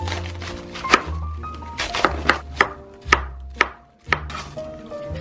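A vegetable cleaver slicing through a raw head of cabbage onto a cutting board, a crisp crunching chop with each stroke, about seven strokes at an uneven pace.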